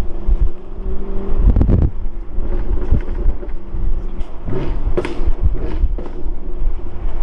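V8 of a 2019 Camaro 1LE running through a Corsa cat-back exhaust, with a steady exhaust drone broken by several bunches of sharp crackles and pops, the sign of the engine running rich.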